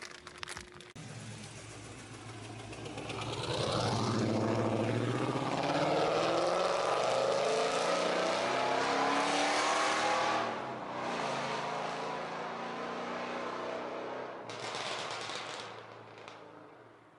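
Car engine accelerating, its pitch rising steadily for several seconds before it eases off and drops about ten seconds in.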